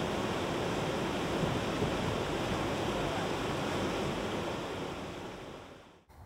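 Whitewater rapids rushing: a steady, even roar of churning river water that fades out about five and a half seconds in.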